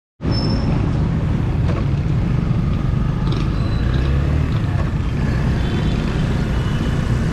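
Steady rumble of wind and a motorcycle engine picked up by a helmet-mounted camera on a moving motorcycle, with street traffic around it.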